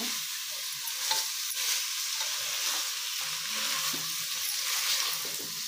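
Mixed vegetables frying in oil and masala in a pressure cooker, a steady sizzle, while a spatula stirs them with soft scraping against the pot. This is the sauté stage where the vegetables are roasted in the spices before rice and water go in.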